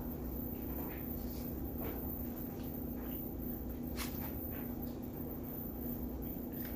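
Quiet chewing with faint mouth clicks over a steady low background hum, and one sharp click about four seconds in.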